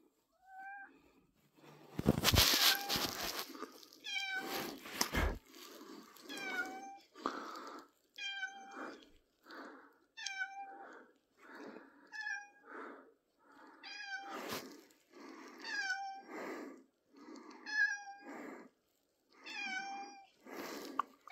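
Domestic cat meowing over and over, short calls every second or two, each dropping in pitch at the end. A loud burst of noise comes about two seconds in.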